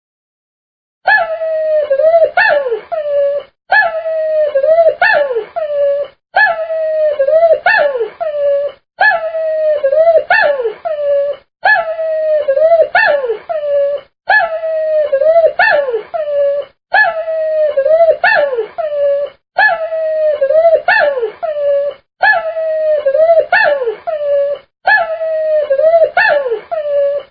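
A puppy whining: a drawn-out, wavering high cry that bends down and back up, with a couple of shorter yelps in each phrase. The same phrase repeats about every two and a half seconds, roughly ten times, with a short break between repeats.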